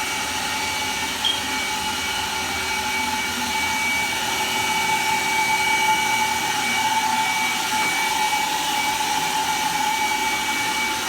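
Vacuum cleaner running steadily, its motor giving a high whine over a rushing hiss.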